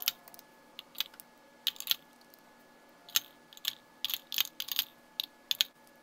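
Lipstick tubes and their caps clicking and clacking against one another and against a clear acrylic lipstick organizer as they are set into its slots one by one: a dozen or so sharp, irregular clicks.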